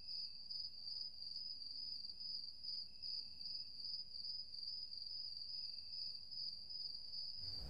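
Crickets chirping: a continuous high-pitched trill that pulses evenly.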